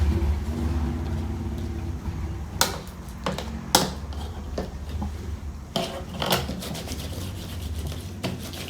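A few light knocks and clatters of small toy pieces being handled during pretend kitchen play, over a steady low hum.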